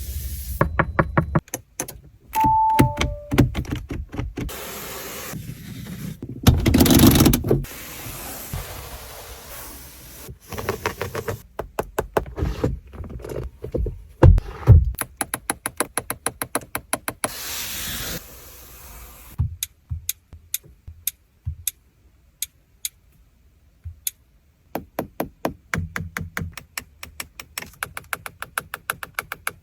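Controls and fittings inside an Audi RS3 Sportback being worked: knocks, thunks and short noisy swishes, with a two-note electronic chime, high then lower, about two and a half seconds in. Long runs of rapid, even clicking follow in the second half, like a detented switch or knob being turned.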